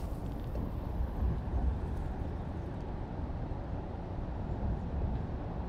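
Steady low outdoor rumble with small swells and no distinct events.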